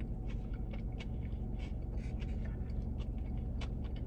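Eating a burger close to the microphone: soft, irregular clicks and crackles of chewing and handling the food, over a steady low hum.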